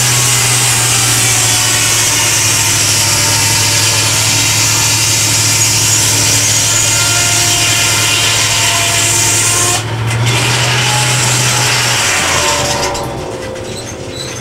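Homemade circular sawmill cutting through a log: a loud, steady sawing hiss over a steady low hum. The hum stops about twelve seconds in and the sawing fades away after it.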